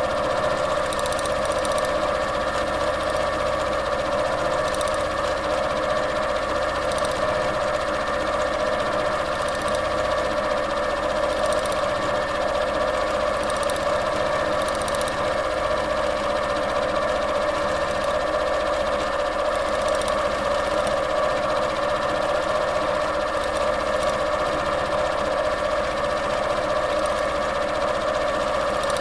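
Domestic sewing machine running steadily at speed, needle stitching through the layered quilt during free-motion quilting.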